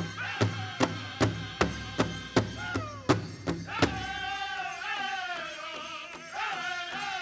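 Pow wow drum group singing a grass dance song, with the big drum struck in a steady beat of about two and a half strokes a second. About four seconds in the drum drops out and the singers' high voices carry on alone.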